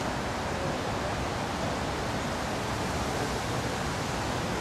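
Steady wind noise on an outdoor microphone: an even rushing hiss with a fluttering low rumble.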